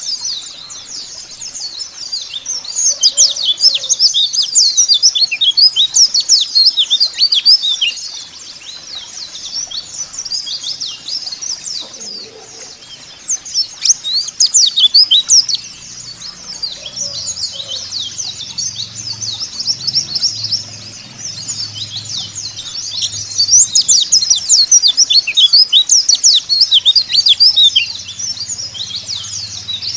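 Pleci (white-eyes, Zosterops) chirping and twittering in rapid, dense, overlapping high notes. The chirping swells louder in stretches, then eases off between them.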